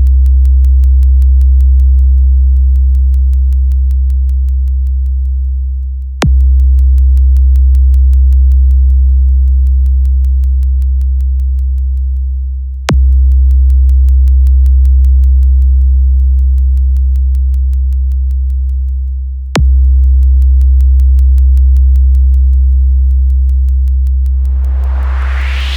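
Electronic DJ sound-check music: four long held sub-bass notes, each about six and a half seconds, striking sharply and fading slowly before the next, with faint rapid ticking above them. A rising sweep builds near the end.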